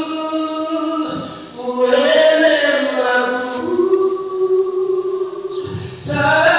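A man singing into a handheld microphone, holding long drawn-out notes with a short break about a second and a half in.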